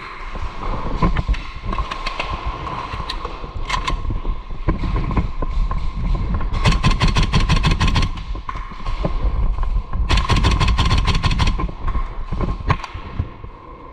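Airsoft guns firing: a few scattered single shots, then two rapid full-auto bursts of about a second and a half each, the first around the middle and the second a few seconds later.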